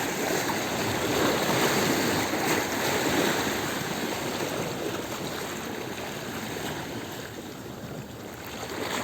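Sea waves washing in over shore stones: a surge of rushing water in the first few seconds that slowly dies away as the wave draws back, with the next wave starting to rise near the end.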